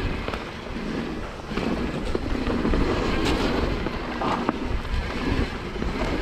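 Wind buffeting the microphone and mountain bike tyres rolling over a dirt trail on a fast descent, with a few sharp clicks scattered through.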